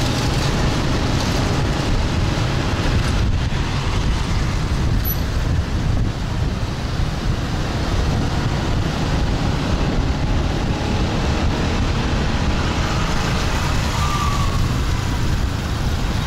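Motorbike riding through city traffic: its engine and tyre noise run steadily under a heavy low rumble of wind on the microphone, with the traffic around it.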